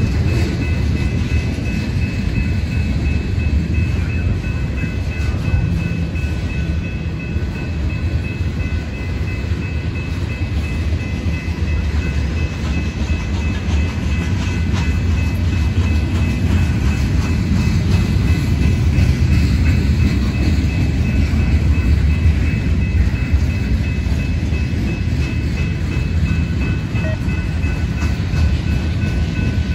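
Freight train cars rolling past close by: a steady, loud low rumble of steel wheels on rail that continues without a break.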